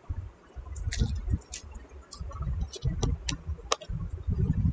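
Scattered sharp clicks, about ten of them at irregular spacing, over repeated low dull thumps.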